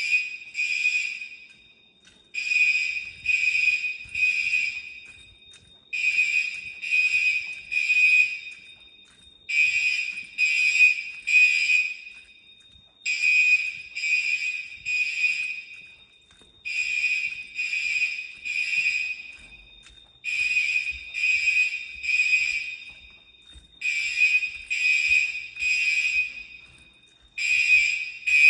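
Fire alarm bell on a Silent Knight 5820XL system sounding during a test. It rings in bursts of about two and a half seconds that repeat about every three and a half seconds, as the panel pulses it on and off.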